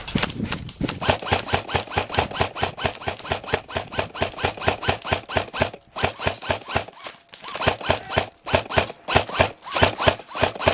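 Airsoft gunfire: a rapid train of sharp cracks, about six a second, with brief breaks near the middle.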